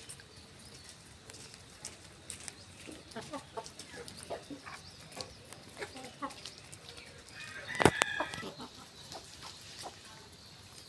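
Desi chickens clucking as they feed, with scattered short ticks throughout and one loud call from a bird about eight seconds in.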